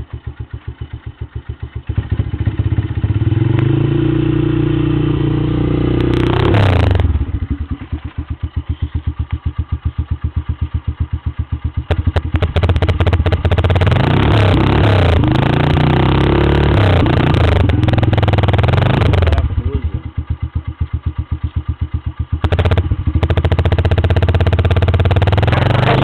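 Yamaha YBR's single-cylinder four-stroke engine breathing through a loud aftermarket exhaust, idling and revved in three bursts. The first comes a couple of seconds in, a longer run of rising and falling revs sits in the middle, and another comes near the end, dropping back to an even idle between them.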